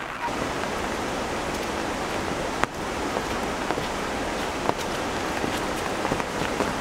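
Rain falling steadily, with a few sharp drops striking close by; the loudest comes about two and a half seconds in.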